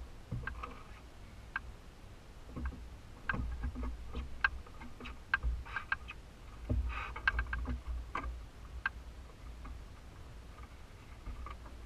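Irregular light clicks and taps from fishing tackle being handled in a boat, busiest in two spells in the middle, over a steady low rumble.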